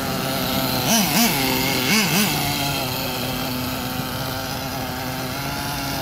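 Nitro glow engine of a VRX-2 1/8-scale RC buggy running, revved in two pairs of quick throttle blips about one and two seconds in, then holding a steady buzzing note. It is being driven gently while the engine is broken in.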